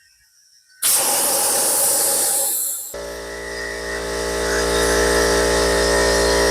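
Compressed air hissing loudly into a freshly mounted mini bike tire as it is aired up. About three seconds in, the hiss gives way to an air compressor's motor starting and running with a steady hum.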